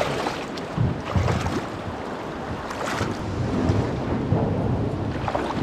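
Shallow river water rushing over rocks and splashing around a person's legs as he wades through a riffle, towing a plastic kayak on a rope, with several louder splashes from his steps.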